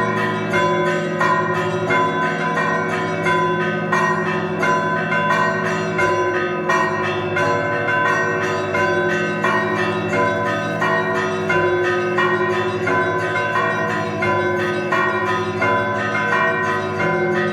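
Russian Orthodox monastery bells rung in a continuous zvon: many bells, deep and high, struck in a fast, unbroken pattern, their tones overlapping and ringing on.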